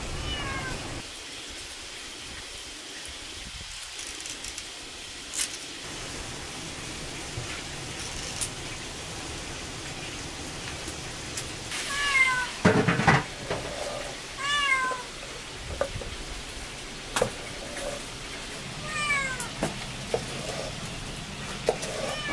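A cat meowing about four times, short falling calls, mixed with a chef's knife cutting cucumbers on a wooden cutting board: sharp knocks of the blade on the board, the loudest about halfway through.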